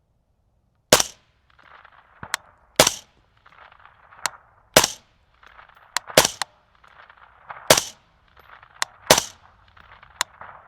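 Suppressed AR-15-style Recce rifle firing six shots, about one every one and a half to two seconds. A fainter, sharp ping follows most shots about a second later: the bullet striking the steel target downrange.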